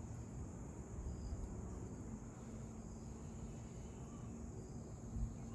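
Faint outdoor background noise, steady throughout, with a faint low hum in the middle; the pouring sauce makes no distinct sound.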